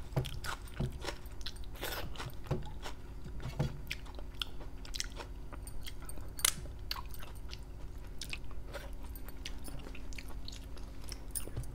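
Close-miked chewing and wet mouth sounds of a woman eating curry and rice by hand. Frequent short lip smacks and clicks run throughout, with finger-licking about halfway through.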